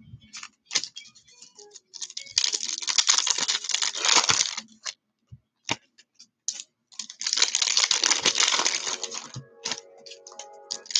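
Plastic trading-card pack wrappers being torn open and crinkled in two long rustling bursts, with light clicks and taps of cards being handled between them.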